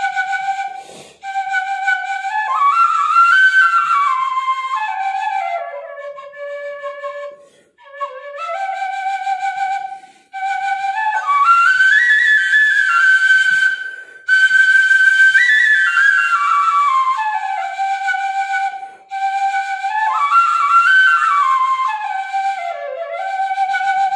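Tibetan lingbu (bamboo flute) playing a solo melody: held notes and stepwise runs up and down, in phrases broken by short pauses for breath.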